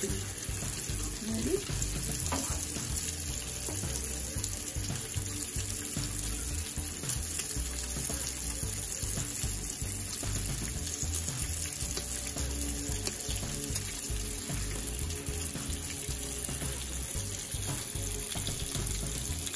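Food frying with a steady, unbroken sizzle.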